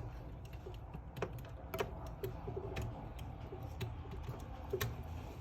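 Irregular light clicks and taps of a small plastic Mavic Mini drone and its parts being handled and repositioned during a propeller replacement, over a low steady hum.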